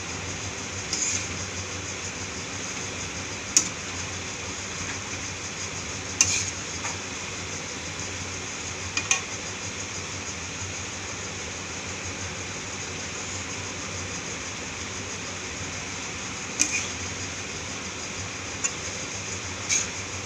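Steel spatula clinking and scraping against a steel kadhai as noodles are tossed and mixed in it, a handful of sharp irregular clinks over a steady hiss.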